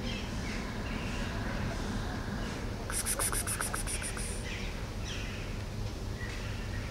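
Outdoor ambience of small birds chirping on and off, with a brief rapid high-pitched trill about three seconds in, over a steady low background rumble.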